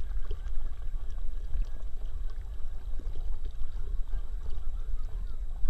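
Pool water sloshing and lapping around a head-mounted action camera as a dog swims, a low, choppy rumble with small splashes from its paddling.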